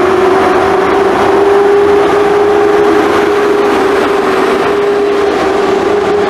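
EP08 electric locomotive pulling away from the platform with a steady whine that rises slightly in pitch as it gathers speed, over the rolling noise of its passenger carriages passing close by.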